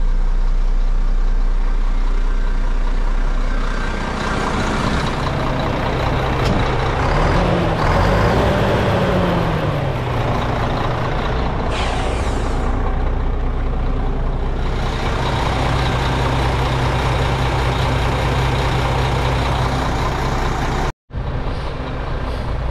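2004 Mack Granite water truck's diesel engine idling steadily, revved up once and let back down about eight seconds in. A short hiss comes about twelve seconds in.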